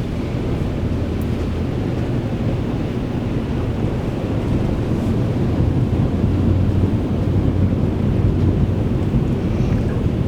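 Steady low rumble of a vehicle on the move, with wind buffeting the microphone.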